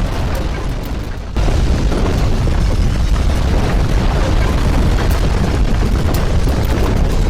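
Loud, steady rumbling noise, heaviest in the bass, with a short dip and a sudden jump back up about a second and a half in.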